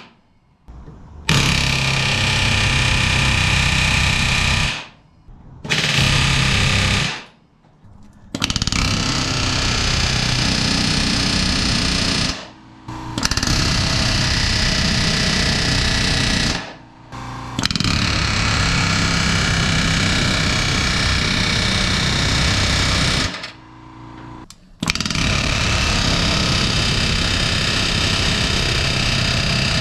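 Pneumatic rivet gun hammering in six bursts of a few seconds each, with short pauses between, setting solid aluminium MS20470 rivets into an aluminium wing spar.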